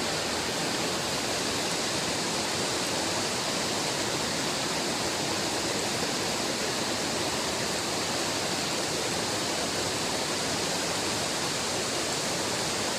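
Mountain creek and waterfall rushing water: a steady, even rush with no break.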